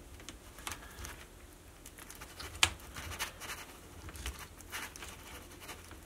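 Sump pump power cords being handled and wrapped against a plastic discharge pipe: soft rustles and light scattered taps, with one sharp click about two and a half seconds in.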